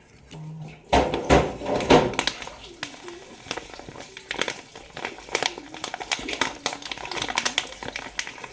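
Crinkly packaging rustling and crackling as it is handled, with scattered sharp clicks and knocks. The loudest handling comes about a second in.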